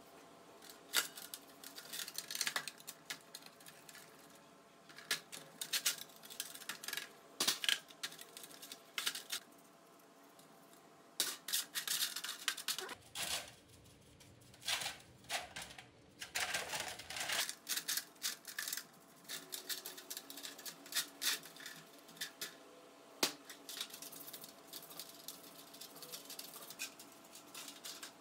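Steel hydraulic jack parts being handled in metal trays: irregular clinks, knocks and scrapes of metal on metal.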